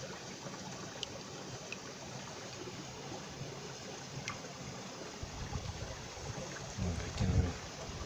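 Mountain stream water running over rocks, a steady rushing wash, with a few faint clicks and some low muffled bumps near the end.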